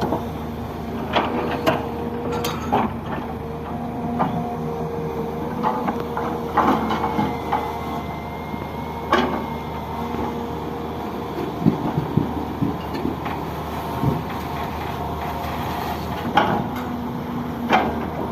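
Heavy diesel construction machinery, an excavator working sand, runs steadily with a hum and a held whine. Scattered short knocks and clanks sound throughout.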